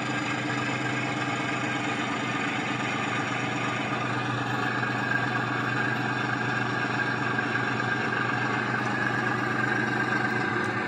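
Diesel locomotive engine sound from a DCC sound decoder (ESU LokSound 5, Class 14 sound) played through a loudspeaker, running steadily. A higher whine builds from about four seconds in.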